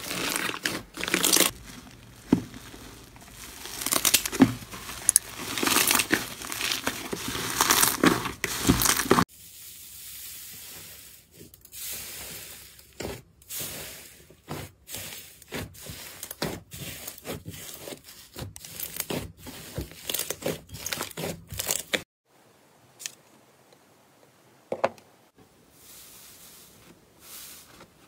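Hands squeezing, kneading and stretching thick slime, giving irregular sticky crackles and tearing sounds. The crackling is densest and loudest over the first third, thins to scattered clicks after that, and is faint near the end.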